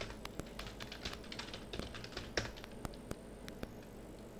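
Computer keyboard being typed on: a quick run of irregular key clicks as a login name and password are entered.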